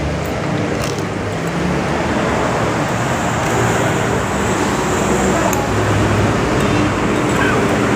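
Steady, fairly loud background rumble and hiss that stays even throughout, with a couple of short light clicks.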